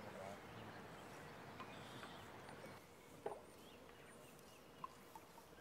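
Near silence: faint outdoor river ambience with a few faint, high bird chirps, and a soft knock about three seconds in, with a smaller one near the end.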